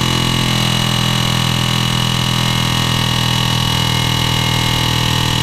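Pneumatic air hammer running flat out at its highest setting, a loud steady buzz as it hammers on a seized ball joint in a Ford Super Duty front axle to drive it out.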